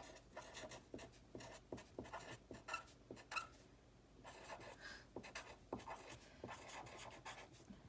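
Faint scratching of a pen tip on paper as a word is hand-lettered: many short, quick strokes, with a brief pause about halfway through.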